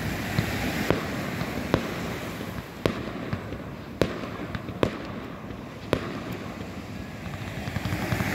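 Consumer fireworks going off: a string of about seven sharp bangs, irregularly spaced roughly a second apart.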